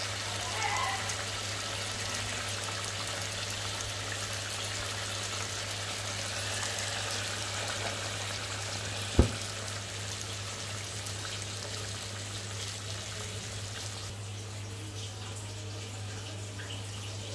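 Hilsa fish curry bubbling as it simmers in a pan: a steady, watery bubbling and hiss over a low hum. A single sharp knock about nine seconds in.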